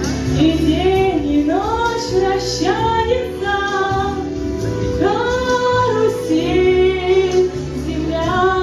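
A song: a high voice sings a melody over instrumental accompaniment.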